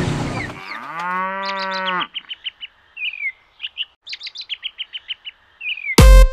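A cow moos once for about a second and a half, followed by small birds chirping in quick runs. Just before the end a loud, bass-heavy electronic dance beat cuts in.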